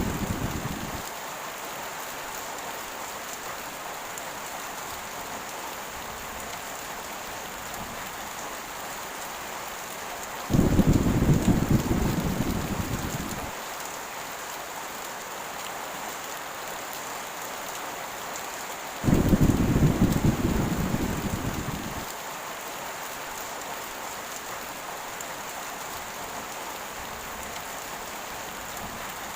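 Steady heavy rain hissing, with two rolls of thunder, each starting suddenly and rumbling away over about three seconds, a third of the way in and again about two-thirds in; an earlier rumble fades out in the first second.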